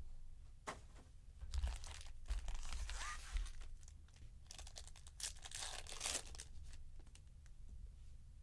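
Trading-card packaging being torn open and crinkled by hand: several irregular bursts of tearing and crinkling, the loudest about five to six seconds in.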